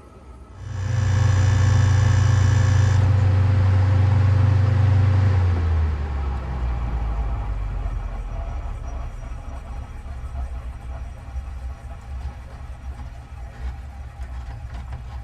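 Window air conditioner humming loudly, then shutting off: about five and a half seconds in the hum dies away with a falling pitch as the motor winds down, leaving a quieter low rumble.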